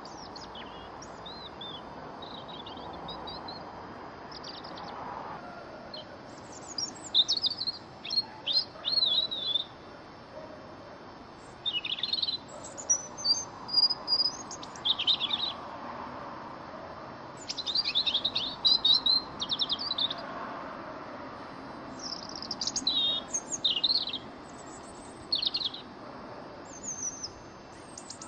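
European robin singing: high, thin warbling phrases with rapid trills and slurred notes, each one to three seconds long, separated by short pauses, over a faint steady background hiss.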